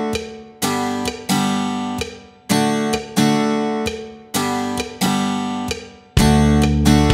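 Background music on acoustic guitar: chords struck about once a second, each left to ring and fade, with a louder, deeper part coming in near the end.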